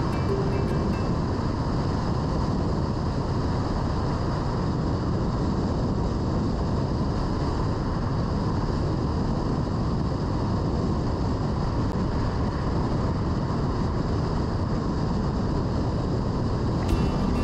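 Steady road noise of a car driving at speed, mostly low tyre rumble with some wind, heard from inside the car.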